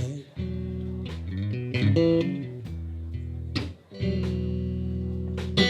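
Guitar playing slow blues chords left to ring, with a short melodic fill about two seconds in and a fresh chord struck about four seconds in.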